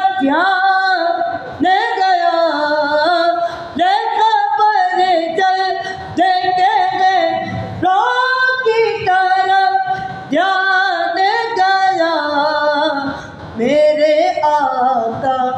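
Unaccompanied devotional naat singing: a voice holding and bending long melodic lines in phrases of a couple of seconds, with short breaks between them.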